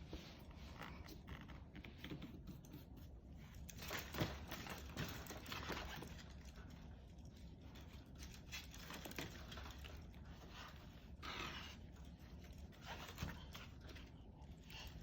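Faint, irregular clicking and rattling of window blind slats handled by a baby, with soft bursts of rustling and breathing.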